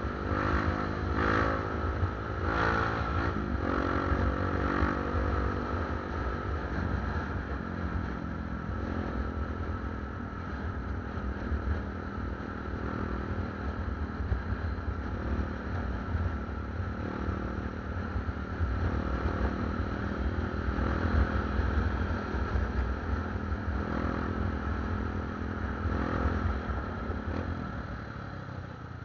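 Motorcycle engine running under way, with a heavy low rumble of wind and road noise. The engine pitch rises and falls in the first several seconds, then holds steadier, and the sound eases off near the end as the bike slows in traffic.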